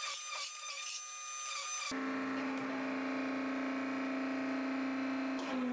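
A metal-forming press working a carbon-steel wok blank. A pitched mechanical running with a regular beat changes abruptly about two seconds in to a steady, lower hum, which dips slightly in pitch near the end.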